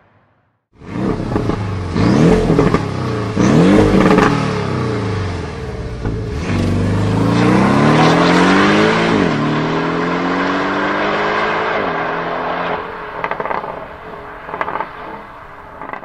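Sports car engine revving: two quick blips that rise and fall back, then accelerating hard with the pitch climbing and dropping at each upshift, twice in the second half.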